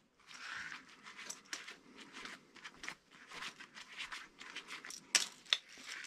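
Faint rustling and small clicks of gloved hands handling and joining electrical wires, with a couple of sharper clicks about five seconds in.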